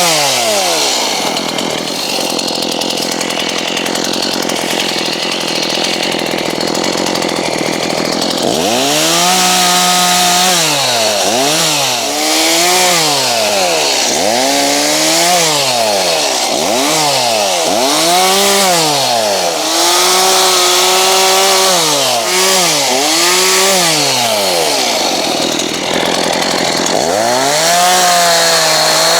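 Petrol chainsaw cutting storm-damaged branches. For about the first eight seconds it runs steadily in the wood with a dense rasp. After that the engine revs up and drops back again and again, about every second and a half, and it revs up once more near the end.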